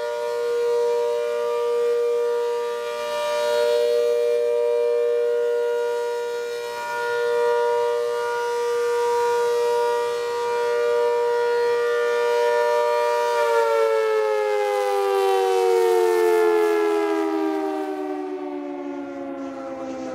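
ACA Hurricane rotating-horn outdoor warning siren sounding a steady tone for its monthly test. The tone swells and fades as the horn sweeps around. About two-thirds of the way through it begins winding down, its pitch falling steadily.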